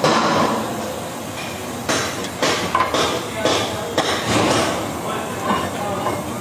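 A string of irregular metal knocks and clanks from a truck axle hub being worked on, over steady workshop noise.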